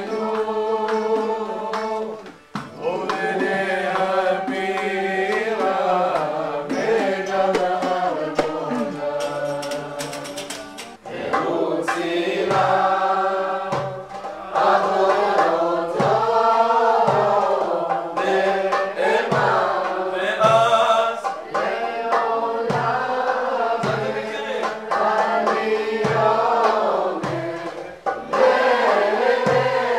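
A group singing a Hebrew piyut (Jewish liturgical poem) together in chant-like melody. About halfway through, a low beat comes in and keeps time about once a second.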